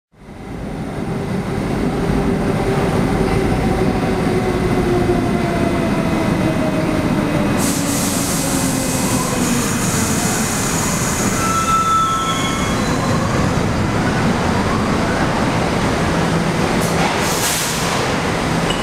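New York City subway train running through the underground station, a steady loud rumble with a motor whine that falls slowly in pitch over the first half. Brief high hissing noises come about eight seconds in and again near the end.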